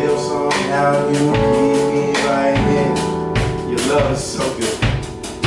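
Live music: a band with drum kit and a singing voice, playing the opening of a song.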